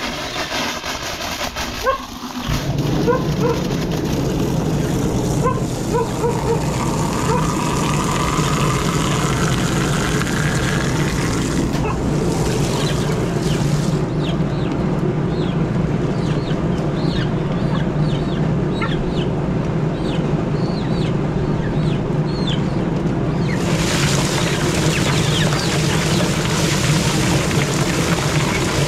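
A small engine comes in abruptly about two and a half seconds in and runs at a steady hum. Chickens cluck and chirp over it.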